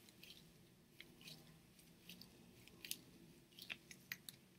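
Faint, irregular crackling clicks from the composite blade of a Bauer Proto R hockey stick as it is flexed by hand: the sound of a blown-out blade that is already toast.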